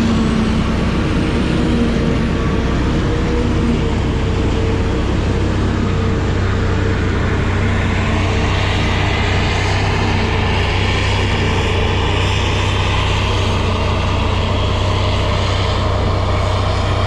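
Heavy farm machinery engine running steadily through the corn silage harvest, a loud deep hum with engine tones over a mechanical rush.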